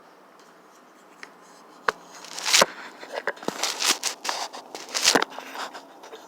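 Close handling noise: a sharp click about two seconds in, then several loud bursts of rustling, scraping and clicking, as of a phone being handled and set down or parts being worked loose by hand.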